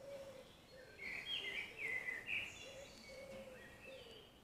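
Faint birdsong: a run of short chirping phrases about a second in, over a quiet outdoor background.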